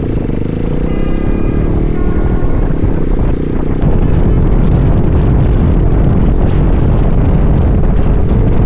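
Motorcycle running in traffic with heavy wind rumble on the microphone, growing louder a few seconds in; a car horn sounds briefly near the start, honking at the rider.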